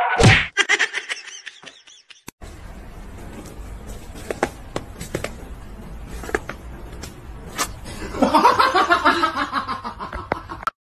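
A person laughing for about two seconds near the end, over a steady low rumble of wind on the microphone and a few sharp clicks. A brief loud sound right at the start.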